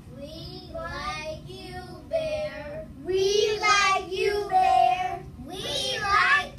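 Young children's voices singing a series of short phrases, some notes held.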